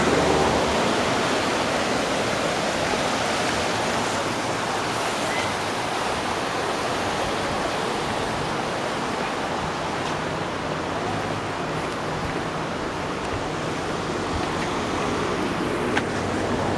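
Steady rush of flowing water from a creek, an even hiss without breaks that eases slightly midway and swells again near the end.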